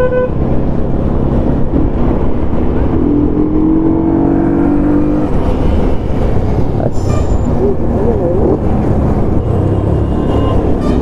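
Motorcycle running along the road: steady engine and road noise, heavy in the low range.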